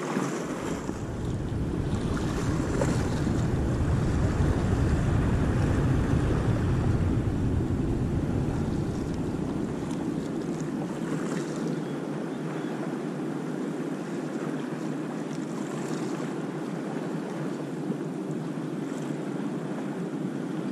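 Sea surf washing on the beach, with wind on the microphone. A low rumble swells over the first few seconds and eases off about nine seconds in.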